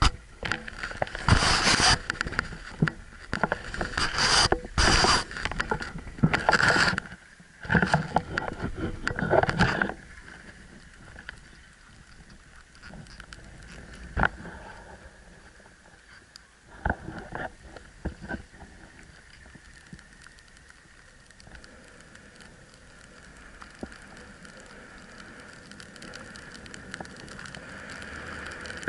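A gloved hand rubbing and knocking against an action camera in its housing for about the first ten seconds, then a much quieter steady hiss broken by a few single knocks, which grows near the end as the snowboard starts sliding over snow.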